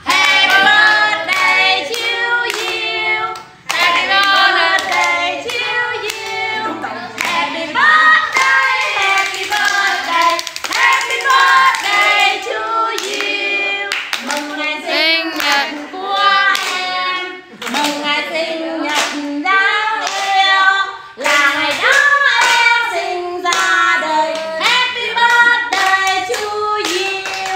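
People singing a birthday song together, with hands clapping along in time.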